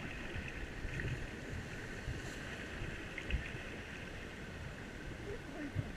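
Steady rush of river water around a rubber raft, with gusts of wind buffeting the microphone.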